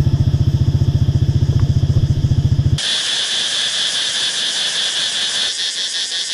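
Motorbike engine running with a fast, even pulse, heard from on the moving bike. About three seconds in it cuts off abruptly to a steady high insect trilling over the even rush of a waterfall.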